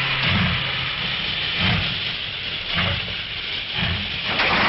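Steam locomotive hissing steadily, with about five slow, uneven chuffs roughly once a second.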